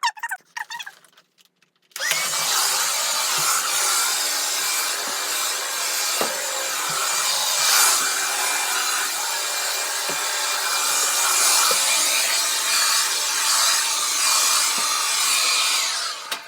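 A loud motor-driven machine switches on about two seconds in, its whine rising as it spins up. It runs steadily with a strong hiss, then winds down near the end.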